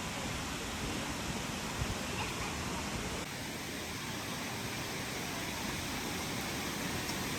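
Steady rush of falling water, like a waterfall or large fountain.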